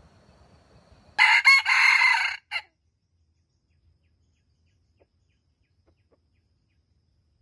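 A wild junglefowl rooster crows once, a short crow of about a second and a half that ends in a brief last note.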